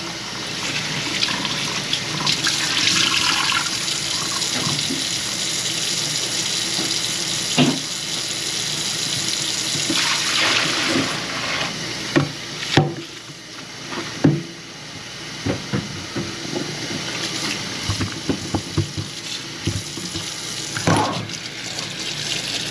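Water running steadily from a kitchen faucet into the sink. About halfway through, the flow suddenly drops quieter, and a series of short knocks and clunks follows.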